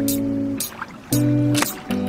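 Background music: an instrumental track with held chord notes that change every half second or so over a steady drum beat.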